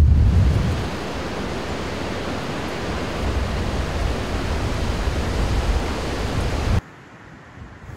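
Gale-force storm wind: low buffeting rumble on the microphone in the first second, then a steady, even rushing hiss that cuts off abruptly near the end, leaving much quieter gusting.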